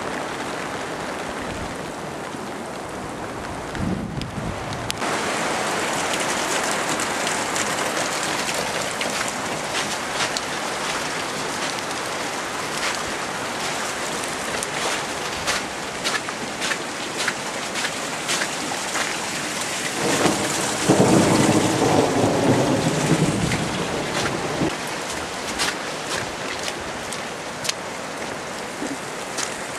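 Heavy rain falling steadily after a hailstorm, with many sharp close drop hits, and a louder, deeper surge lasting a few seconds about two-thirds of the way through.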